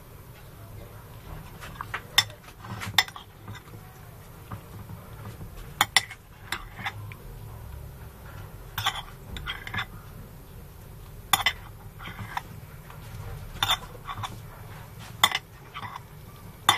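Cutlery clinking against a plate: a dozen or so sharp clinks at irregular intervals, over a low steady hum.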